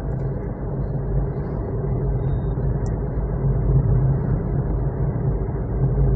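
Honda car's engine and road noise heard inside the cabin, a steady low drone while cruising in fifth gear at about 40 km/h on light throttle, swelling slightly about four seconds in.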